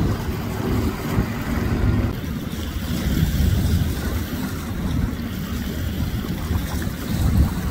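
Wind buffeting the microphone in an uneven low rumble, with the engine drone of two distant jet skis running at speed faint underneath.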